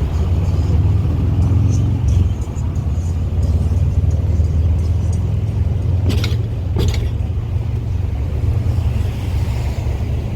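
Steady low rumble of a car driving, with wind noise, and two sharp knocks about six seconds in.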